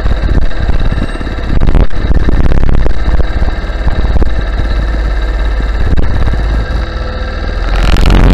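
Go-kart engine running steadily at low speed, heard from the rider's helmet. Near the end it becomes a louder, rougher rush.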